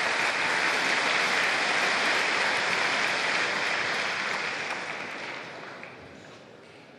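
Crowd applauding a won point, the clapping dying away over the last couple of seconds.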